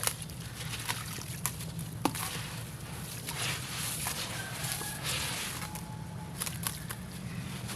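Crumbly concrete pieces being handled in water: scattered sharp crackles and crunches over a wet, hissing texture, with a steady low hum underneath.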